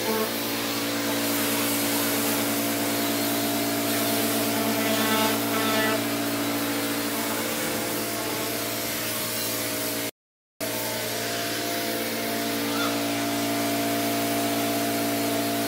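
Handheld electric disc sander running steadily against a yacht's hull: a constant motor whine over a hiss of abrasion. It cuts out completely for half a second about ten seconds in.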